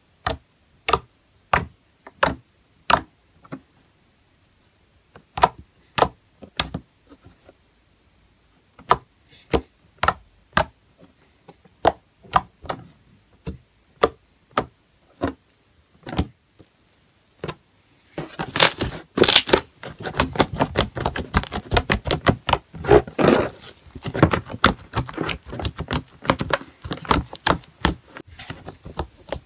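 Fingers poking glossy slime: each poke pops an air pocket with a sharp, wet click, one or two a second. From a little past halfway, the poking turns to dense crunchy crackling as fingers press into a slime full of small beads.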